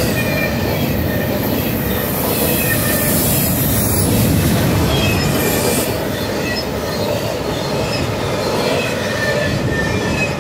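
Double-stack intermodal freight cars rolling past: a steady rumble of steel wheels on the rails, with faint high wheel squeals coming and going. The sound eases slightly in the second half as the last cars go by.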